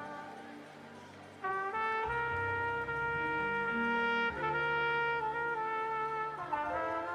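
Trumpet playing a slow worship melody in long held notes over a low sustained accompaniment; one note dies away and a new phrase comes in about a second and a half in.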